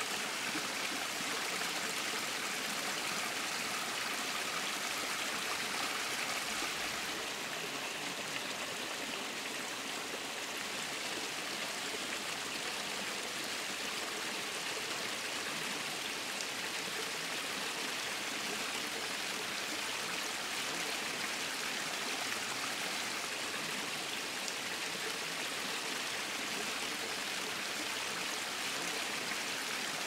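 Small mountain stream splashing down a little cascade over mossy rocks: a steady, even rush of running water.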